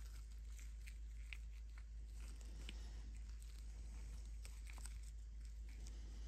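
Scattered faint snaps and crunchy clicks as thin resin support struts are broken off a 3D-printed model car body by gloved fingers, over a steady low hum.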